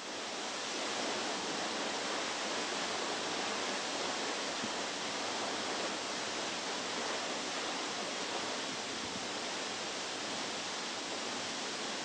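Toccoa Falls, a 186-foot waterfall, roaring: a steady, even rush of falling water that swells up over the first second and then holds.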